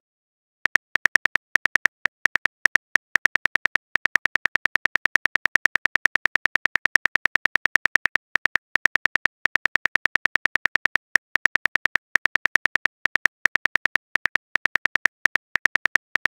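Simulated phone-keyboard typing clicks from a texting-story app: a fast, uneven run of sharp ticks, several a second with brief pauses, as a message is typed out letter by letter.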